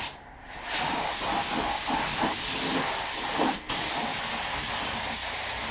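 Compressed-air paint spray gun hissing steadily as it sprays black automotive paint. It cuts out briefly twice, just after the start and about halfway through, as the trigger is let off.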